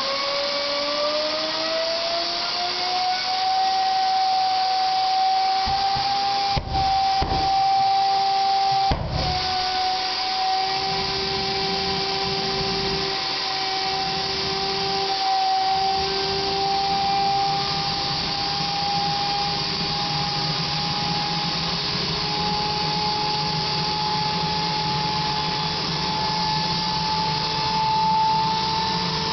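Homemade gas-turbine jet engine running: a whine that climbs over the first few seconds as it spools up, then holds steady over a loud rushing exhaust, creeping slightly higher in pitch near the end.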